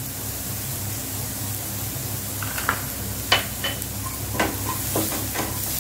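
Chopped onions and green chillies frying in butter in a non-stick kadai: a steady sizzle, with sharp ticks and pops scattered through the second half.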